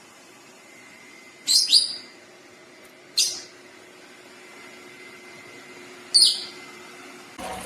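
A bird chirping: four short, high chirps that fall in pitch, two in quick succession, then one, then one more, over a faint steady hum.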